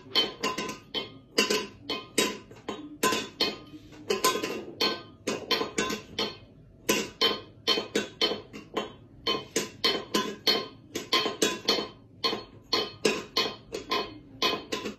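A cat pawing and tipping a small stainless-steel food bowl on a tile floor: an irregular run of ringing metallic clanks, a few a second, with short pauses.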